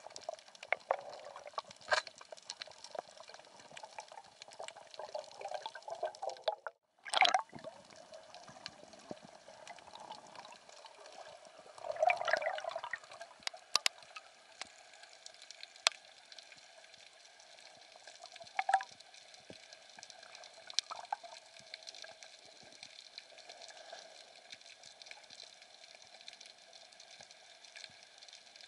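Underwater ambience: a steady faint hiss of water, scattered with sharp clicks and crackles, broken by a few louder surges of water noise, the biggest near the middle.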